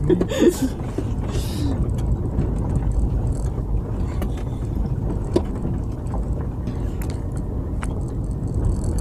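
Vehicle cabin noise while driving on a rough forest dirt road: a steady low rumble of engine and tyres, with a few short sharp knocks and rattles.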